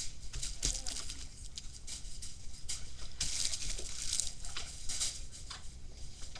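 Fireworks packaging being handled: irregular rustling and crinkling with small knocks, busiest about three to four seconds in.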